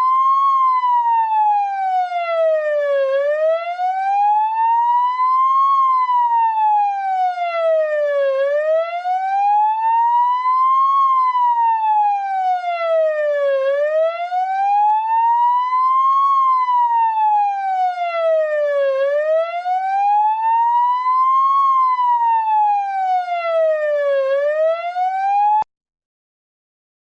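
Siren-like electronic test tone playing as the left-channel speaker test signal. The buzzy tone glides steadily up and down in pitch, one full rise and fall about every five seconds. It repeats five times and cuts off suddenly about a second and a half before the end.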